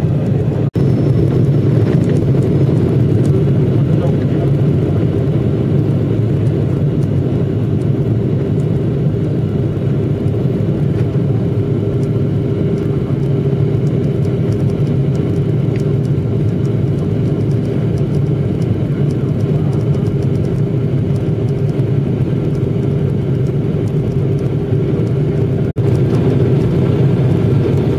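Steady cabin drone of an airliner in flight on approach: a deep rumble of engines and airflow with a few steady hums in it. The sound drops out for an instant twice, about a second in and near the end.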